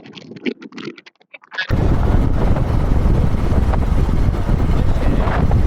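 A voice picked up through a budget earphone microphone, cut off abruptly under two seconds in. It gives way to loud, steady wind buffeting the microphone, heaviest in a deep rumble.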